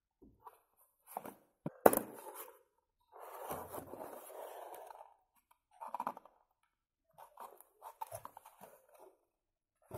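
Cardboard box being opened by hand: its flaps scrape and rustle in several short spells, with a sharp knock about two seconds in as the loudest sound.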